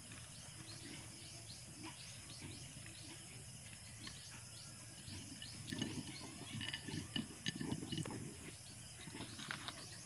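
Rapid, repeated high chirps from a small animal in the background, about three a second throughout. Between about five and eight seconds in, louder rustling and light clatter of hand and sugar-bowl handling as sugar is sprinkled over the plate of fried cassava.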